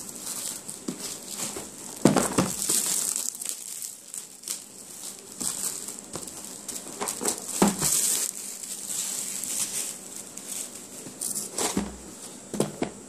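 Plastic shrink-wrap film crinkling and tearing as it is peeled off a cardboard box, in irregular bursts with several sharp snaps.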